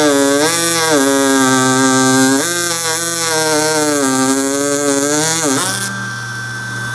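Ryobi 4V cordless power carver buzzing loudly as its chisel cuts a channel into pine, the pitch repeatedly dipping and recovering as it is pressed into the wood. About six seconds in it drops to a quieter steady hum.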